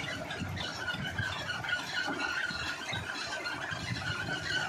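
Old diesel engine and belt-driven centrifugal pump of a tube well running, with a steady high squeal over the engine's low, uneven chugging.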